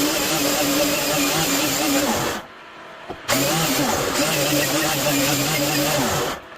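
Electric power tool motor running in two bursts, the first about two seconds and the second about three, with a short stop between; its pitch wavers slightly as it works.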